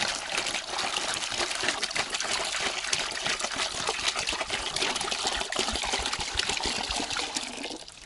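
Water pouring from a 5-litre plastic bottle into a plastic bucket, a steady splashing stream that stops shortly before the end.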